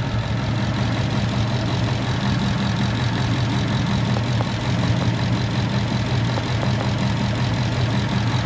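Ford Mustang V8 engine idling steadily. The engine has an intermittent misfire on cylinder 8, which the technician traces to a faulty engine computer dropping the injector signal.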